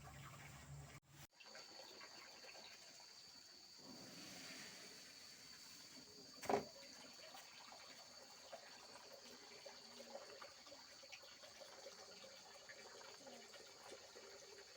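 Faint, steady high-pitched insect drone, after a brief dropout about a second in, with one sharp knock about six and a half seconds in.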